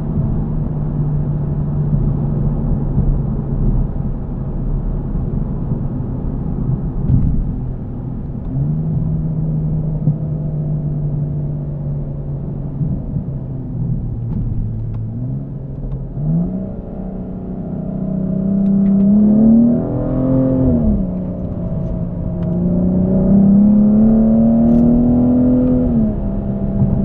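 2016 BMW M235i's turbocharged 3.0-litre inline-six with the M Performance exhaust, heard from inside the cabin. It cruises at steady revs for about the first half, then accelerates hard, the engine note climbing, dropping at a gear change, and climbing again before falling away near the end.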